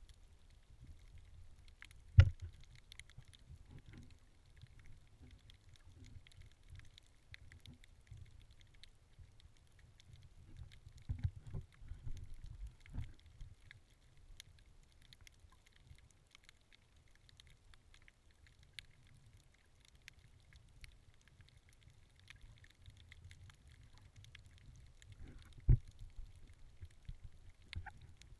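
Underwater sound from a camera held below the surface: a low muffled rumble of moving water with faint scattered crackling. A few sharp knocks stand out, one about two seconds in and one near the end, with a cluster of smaller knocks about halfway through.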